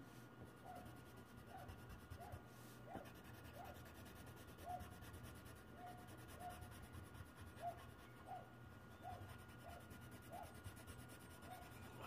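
Faint scratching of a colored pencil coloring on paper, with a short faint chirp repeating about every half second to second over a low steady hum.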